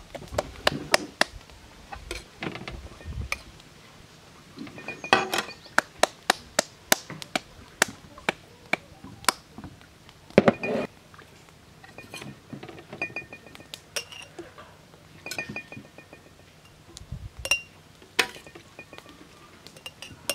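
Kitchenware being handled: irregular clinks and knocks of utensils against dishes and glass, several leaving a short, high ringing tone, with a few heavier knocks.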